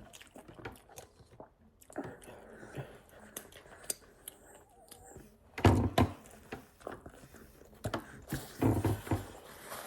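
Close-miked chewing and biting of pizza: wet mouth clicks and smacks. There are two heavier low thumps, a little over halfway and near the end.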